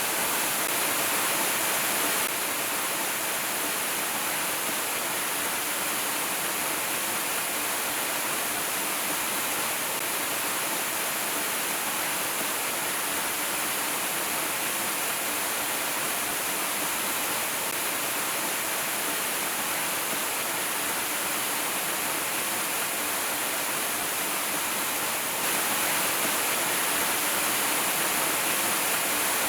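Waterfall running as a steady, hissing rush of falling water. It drops a little in level about two seconds in and comes back up near the end.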